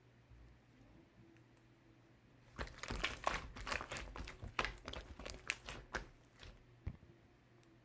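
Sky-blue slime with heart-shaped toppings being squished and pressed by hand, giving dense crunchy crackles and pops for about four seconds from a couple of seconds in, with a few scattered clicks before and one more click near the end.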